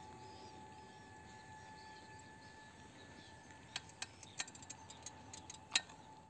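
Faint outdoor ambience: small birds chirping in the first couple of seconds over a steady high hum, with a few sharp clicks in the second half.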